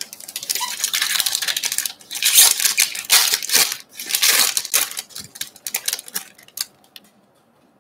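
Foil-lined wrapper of a trading card pack being torn open and crinkled by hand: a dense crackling that stops about seven seconds in.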